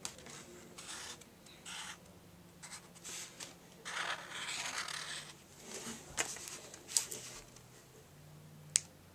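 Felt-tip fabric marker writing on paper: a series of short, irregular scratchy strokes as letters are drawn, with a sharp click near the end.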